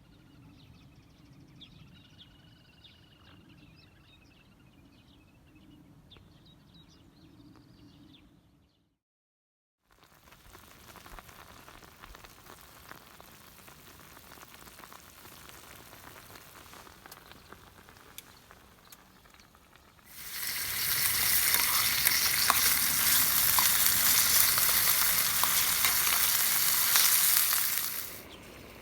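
Food frying in a pan, sizzling and crackling; the sizzle is much louder for the last eight seconds or so. Before that, a fainter shot with a few bird chirps over a low hum.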